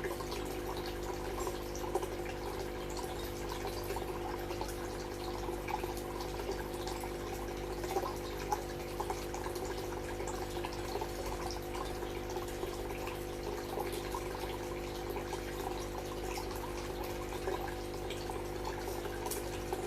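Water trickling and dripping into ornamental fish tanks, with many small splashes over a steady hum.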